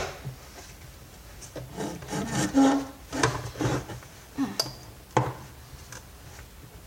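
Plastic parts of a vacuum cleaner housing being handled and pried at: a string of scrapes, rubs and light knocks, several seconds of irregular handling noise.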